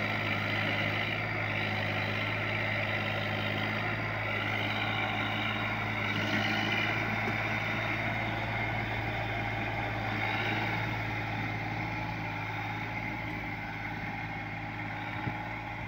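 Sonalika DI-745 III tractor's diesel engine running steadily under load, pulling a trolley heavily loaded with sugarcane.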